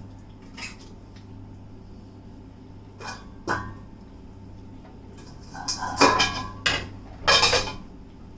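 Metal utensils clinking and knocking against a cooking pan: a few separate clinks, then a busier run of clatter in the second half.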